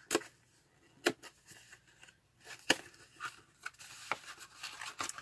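Product packaging handled and worked open by hand: three sharp clicks or taps, then rustling and scraping of the packaging.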